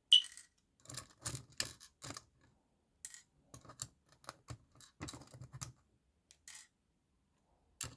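Small plastic kit parts and their bags being handled and opened: a sharp click right at the start, then a run of short irregular clicks and crinkles.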